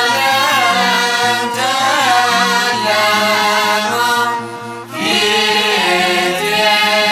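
Ethiopian Orthodox Tewahedo choir singing a mezmur (hymn) together in long, held phrases, with a short break about four and a half seconds in before the next phrase begins.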